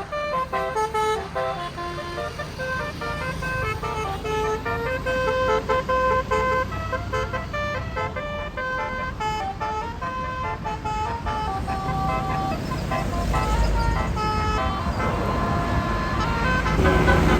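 Tour bus's Basuri 'telolet' multi-tone air horn playing a tune of quick changing notes, with the low rumble of the bus's engine underneath that grows louder in the last few seconds.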